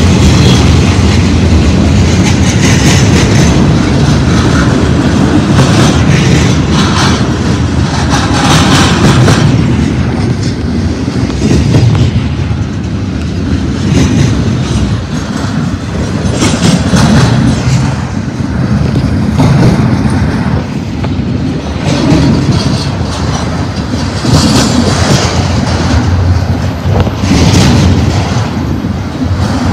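Double-stack intermodal freight train's well cars rolling past: a steady, loud rumble of steel wheels on rail, with a clattering surge every two to three seconds as each set of wheels goes by.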